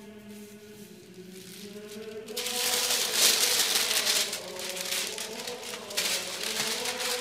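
A thin sheet of paper rustling and crinkling loudly as it is peeled up off an olifa-oiled icon panel, starting about two and a half seconds in. Chanted choral music plays softly underneath.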